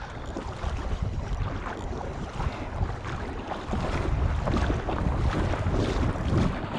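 Wind buffeting the microphone with a rumbling, swelling noise over water lapping around a wading angler.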